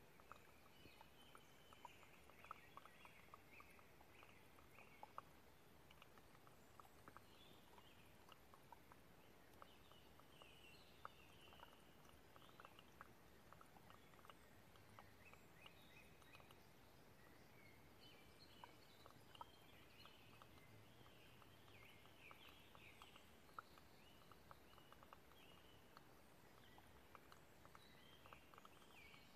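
Near silence: faint hiss with scattered soft ticks and faint high chirps throughout.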